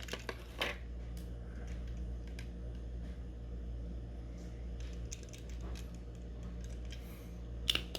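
Light, irregular clicks and taps from handling a die-cast model car and its plastic packaging, over a steady low hum.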